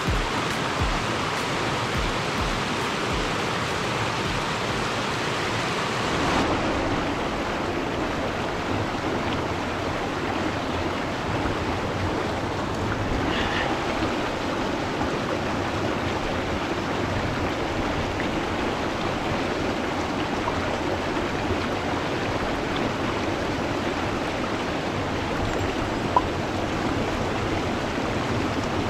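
A rocky mountain headwater stream rushing and splashing over rocks, a steady, even rush of water. A single short tick sounds near the end.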